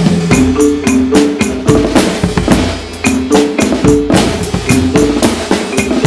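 Percussion ensemble playing a driving, densely rhythmic piece: short repeating marimba figures over snare drums, drum kit and bass drum.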